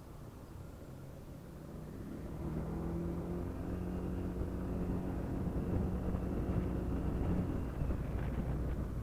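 Honda PCX scooter's single-cylinder engine and exhaust running under way, a low rumble that grows louder about two seconds in and then holds a steady pitch.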